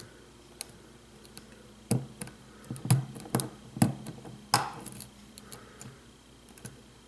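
Irregular small metallic clicks and taps of a hook pick and tension wrench working the pins of a pin-tumbler lock. The loudest tap comes a little after halfway.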